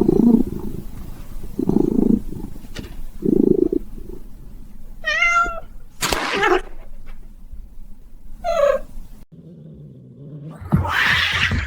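Cat meowing twice: a longer call about halfway through and a shorter, falling one a few seconds later. Between and around them are a few dull low sounds and short noisy bursts.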